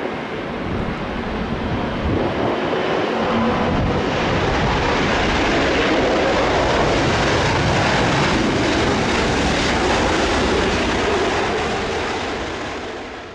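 Jet airliner's engines passing close, a dense rushing noise that builds over the first few seconds, holds, and fades away near the end.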